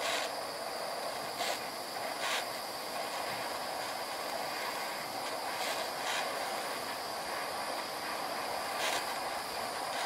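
Handheld gas torch flame hissing steadily as it heats a fluxed copper cable lug so the tin-lead solder melts and flows in, with a few short crackles.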